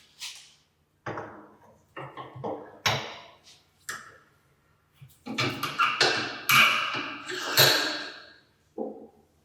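Metal parts knocked and handled on a workbench: a string of separate knocks and clunks, then a few seconds of dense clattering and scraping, and one last knock near the end.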